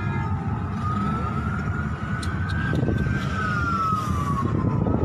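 An emergency vehicle siren wailing slowly: its pitch rises to a peak about halfway through and falls again, then starts to climb once more at the end. Under it runs a steady low rumble.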